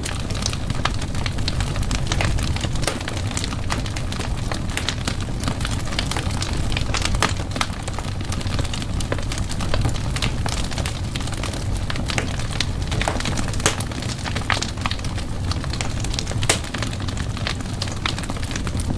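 Wood fire burning in a fireplace, with a steady low rumble of flame and frequent irregular crackles and pops.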